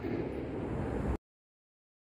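Steady low rumble of background noise that cuts off abruptly to total silence a little over a second in, as if the sound track was muted.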